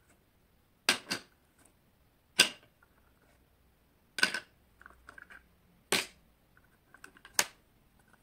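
Hard plastic bottle caps clacking as they are handled, picked up and set down on a plastic Lego baseplate. About six sharp clicks, the first two in a quick pair, with fainter small taps in between.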